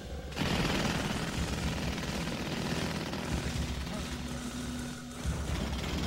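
Jackhammer starting suddenly and running with a rapid, loud hammering clatter, easing briefly about five seconds in.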